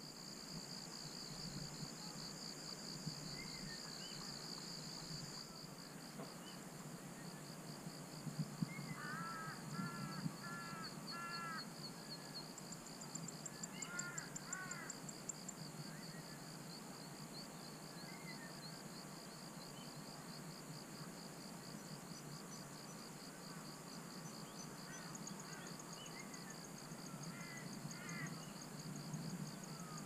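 Distant birds calling over a steady, high-pitched pulsing insect chorus. A run of four or five repeated harsh calls comes about ten seconds in, a short burst of calls follows a few seconds later, and scattered calls return near the end.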